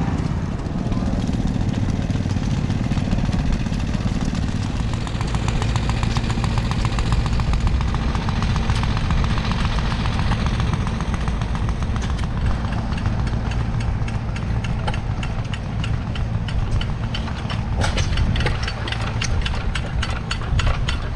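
Engine idling steadily. About twelve seconds in, a rapid, regular clicking of machinery joins it and grows denser toward the end.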